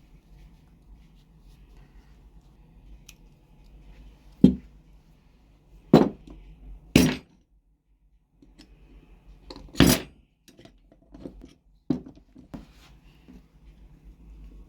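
Metal tool parts and hand tools being handled on a workbench: a series of separate sharp clanks and knocks over a low steady hum, the loudest about halfway through.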